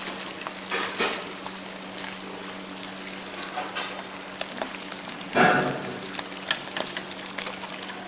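Fish frying in hot oil: a steady sizzle with small crackles, over a steady low hum, and one louder noise about five seconds in.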